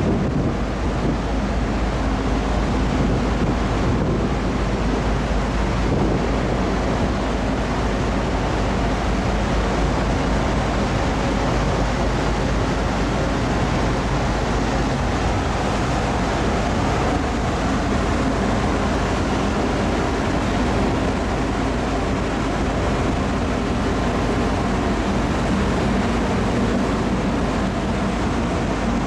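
Car ferry under way, heard from its open deck: a steady rush of wind on the microphone and sea noise over the low, constant drone of the ship's engines.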